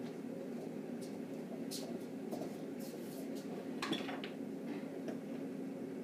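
Scattered light clinks and clicks of kitchen items being handled, over a steady low hum, with one sharper knock about four seconds in.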